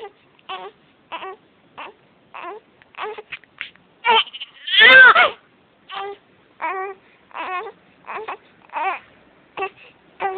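Young child crying in short sobbing cries about every half second, with one long, loud wail about four seconds in. He is crying from hunger.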